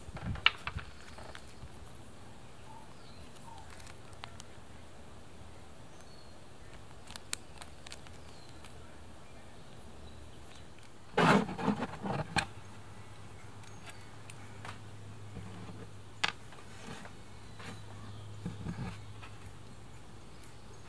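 Small hand-handling sounds of plastic parts: scattered light clicks and taps, and a short burst of crinkling from a small plastic zip-lock bag of screws about eleven seconds in, the loudest sound here. A faint low hum sets in just after it.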